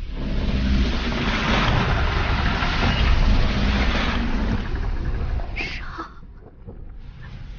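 Sound-design rumble of a huge ghost ship gliding through fog: a heavy low rumble under a loud rushing noise, which falls away about five and a half seconds in.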